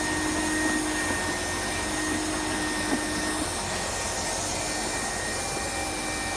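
A motor-driven machine running steadily: an even whir with a steady high whine over it, and a single light tap about three seconds in.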